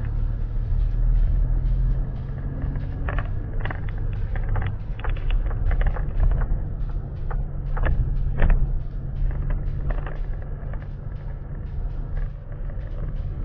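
Motor vehicle engine running steadily with a low hum, with a run of short knocks and rattles in the middle.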